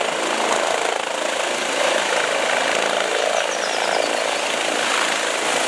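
Eurocopter EC135 air-ambulance helicopter hovering low, a steady rush of turbine and rotor noise.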